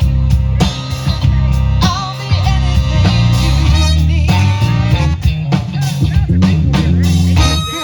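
Live band playing loud, steady-beat music: a horn section over bass and a drum kit.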